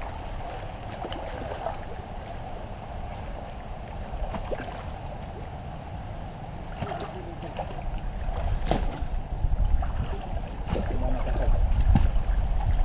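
Muddy water sloshing and splashing as several people wade and work in a shallow pond, with scattered short splashes. From about two-thirds of the way in, wind rumbles on the microphone.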